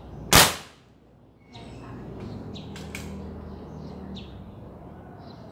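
A single sharp crack of a .22 caliber foot-pump air rifle shot, its pellet striking and cracking the wall clock's glass face. Birds chirp a few times afterwards.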